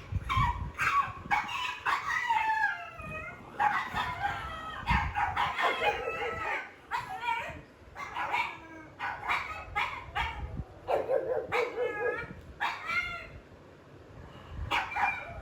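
A pug barking and howling in an excited string of short, pitched cries that bend up and down, broken by a couple of short lulls.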